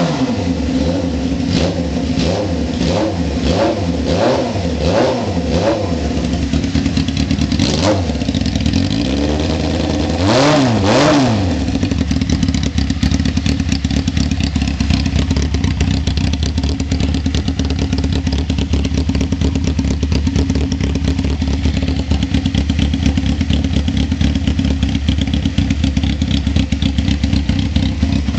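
Honda CBR600 inline-four engine running with its exhaust removed, so it is unmuffled. It starts with a quick series of short throttle blips, then gives a longer rev about ten seconds in, then settles into a steady idle.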